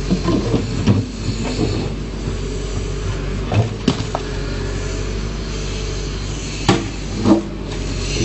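Backhoe loader's diesel engine running steadily under work, with several sharp knocks and clanks of the bucket and stone, a pair about halfway through and two more near the end.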